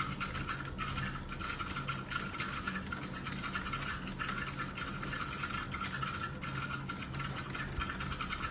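Fast, continuous typing on a computer keyboard: a dense, uneven stream of key clicks, over a steady faint hum.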